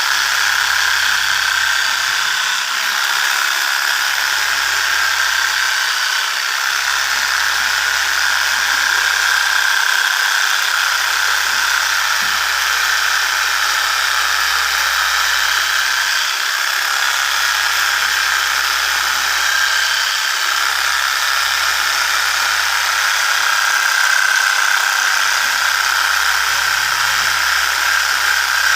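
A small motor whirring steadily with a faint high whine.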